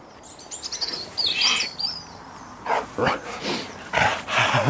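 A golden retriever's breathy play huffs, several short bursts in the second half, after a run of high chirps in the first two seconds.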